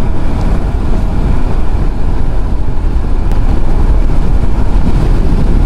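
Wind buffeting the microphone on a scooter riding at highway speed, a loud, fluttering rumble, with the Suzuki scooter's engine and tyre noise underneath.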